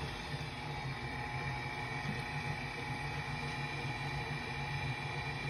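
Cuisinart stand mixer running steadily, its flat beater mixing thin chocolate cake batter; a constant motor whine and hum.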